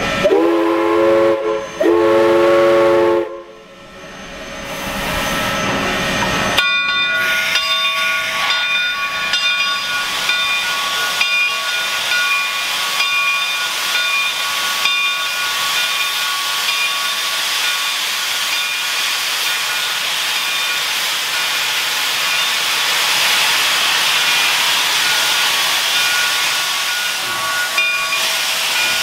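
Southern Railway 401, a 2-8-0 steam locomotive, sounds its whistle in two long blasts, the signal to proceed. A few seconds later a loud, continuous hiss of steam starts from its open cylinder cocks as it begins to move off.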